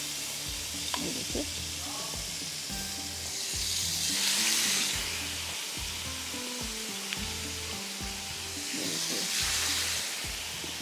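Masala-marinated chicken pieces sizzling in hot oil in a non-stick wok, the sizzle swelling louder twice, about four and nine seconds in.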